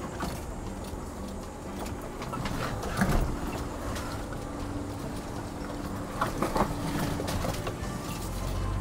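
Off-road 4x4's engine running at low crawling speed on a rocky dirt trail, a steady low hum with tyre and chassis rumble. Sharp knocks come about three seconds in and again in a short cluster around six seconds.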